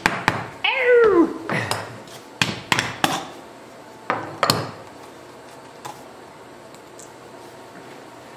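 A short cry of "ow!" about a second in, falling in pitch, among clicks and knocks of a plastic gallon jug of mineral oil being handled and its neck pulled open.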